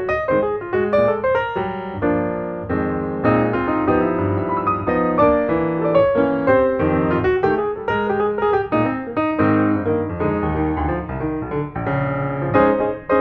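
Background piano music, with a continuous flow of notes over held chords.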